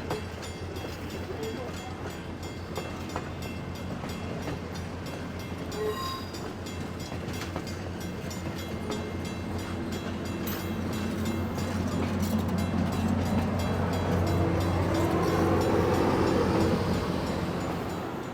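Diesel-hauled passenger train rolling past: a steady low engine drone over the rumble of wheels on rail, growing louder over the last several seconds.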